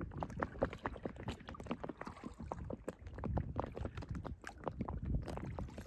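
Water lapping and dripping around a moving kayak: many small, irregular splashes and ticks.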